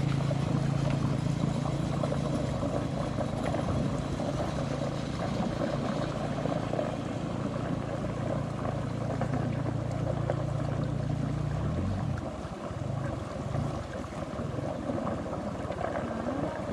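A small engine running steadily with a low, even drone that stops about twelve seconds in, leaving outdoor noise.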